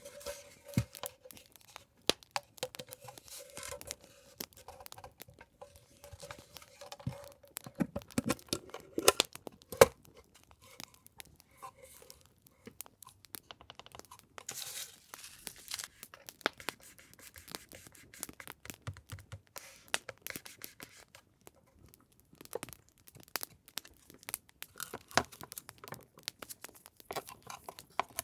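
Paper and packaging being handled, torn and crinkled, with many small sharp clicks and taps throughout. A steady hum runs under it for about the first nine seconds, then stops.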